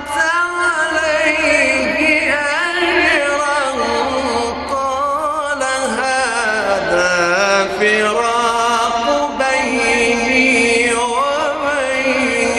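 A man's voice in slow, melodic Quran recitation, held in long ornamented phrases that waver and glide up and down in pitch.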